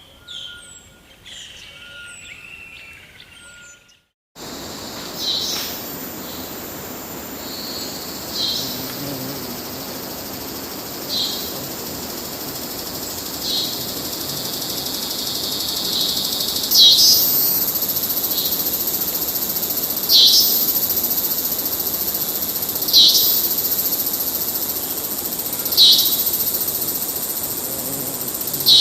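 Rainforest ambience recording: birds singing for the first few seconds, then a brief dropout to silence and a steady high insect chorus. Over the chorus a short chirping call repeats about every three seconds, louder in the second half.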